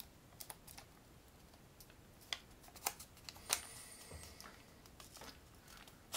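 Small, irregular clicks and taps of metal tweezers picking at a paper sheet of adhesive lens stickers, trying to lift one off, with the sharpest click near the end.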